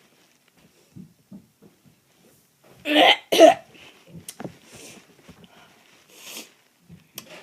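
A person coughing twice in quick succession, followed by a few light clicks and handling noises.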